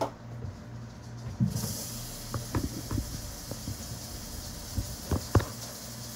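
Tap water running into the emptied beef broth container, a steady hiss that starts about a second and a half in, with a few light knocks and clunks of the container being handled. A steady low hum sits underneath.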